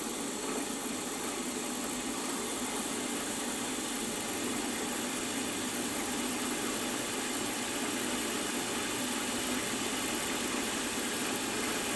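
Milling machine spindle running steadily while a number 46 (2.05 mm) twist drill is fed slowly into the metal, drilling a tapping hole. The sound is an even whir that grows slightly louder over the stretch.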